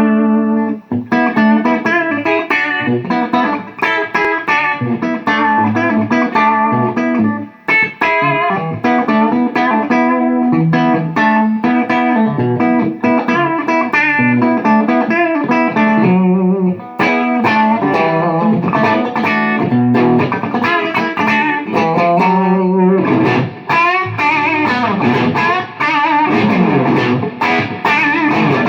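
Electric guitar, a Telecaster, played through an Orange AD30 tube amp with spring reverb: a continuous run of picked single-note lines and chords in a classic-rock tone with some overdrive.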